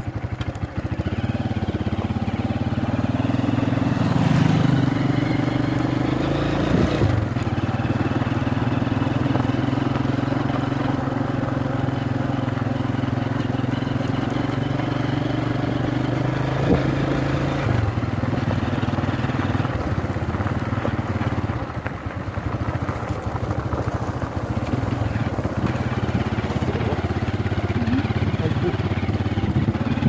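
Motorcycle engine running steadily under way, its note shifting a few times as the ride goes on.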